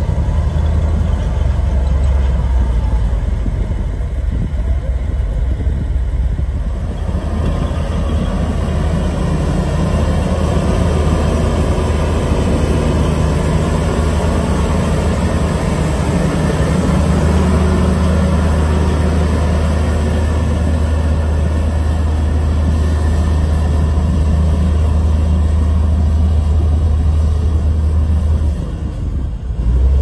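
Komatsu crawler bulldozer's diesel engine running steadily as it pushes dirt, a loud low drone that dips briefly just before the end.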